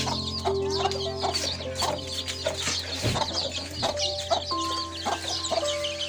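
Chicks peeping busily in quick, high chirps, with a hen clucking now and then, over background music of steady held notes.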